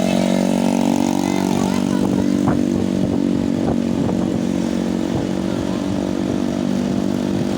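Steady drone of road-vehicle engines, a motorcycle engine among them, running at an even pitch.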